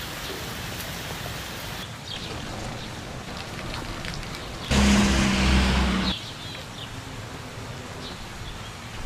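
Steady rain noise. About five seconds in, a louder low rumble with a steady hum cuts in for about a second and a half, then stops abruptly.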